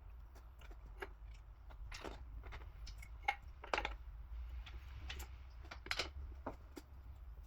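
Faint scattered clicks and light taps, a dozen or so at irregular intervals and the clearest about two, four and six seconds in, over a low steady hum: tools and engine parts being handled.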